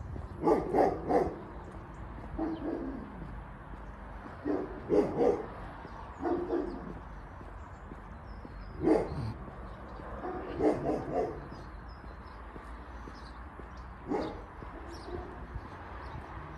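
Dog barking repeatedly, in short groups of one to four barks every few seconds.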